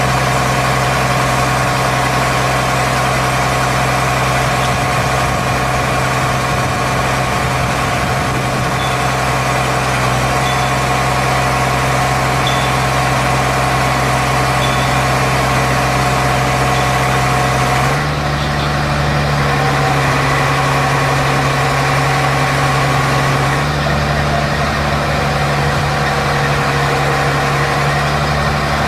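Diesel engine of a crawler-mounted hydraulic piling rig running steadily as the rig is loaded onto a low-loader trailer. Its note shifts abruptly to a different pitch about 18 seconds in and again near 24 seconds.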